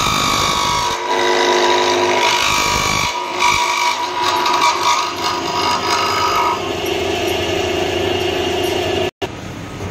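Wood drilling machine with a 2 hp three-phase electric motor running under load, its bit cutting a long slot in a wooden block as the table slides; the steady tones shift in pitch and mix as it works. The sound cuts out abruptly for a moment near the end and comes back quieter.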